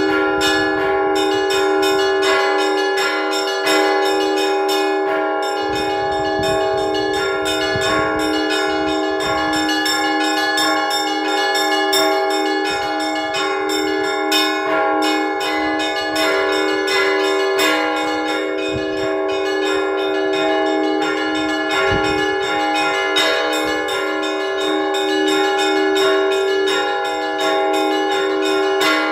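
Russian Orthodox church bells rung by hand by a bell ringer in a continuous peal (zvon). Rapid strokes of the smaller bells sound many times a second over the steady hum of the larger bells. The peal calls parishioners to prayer.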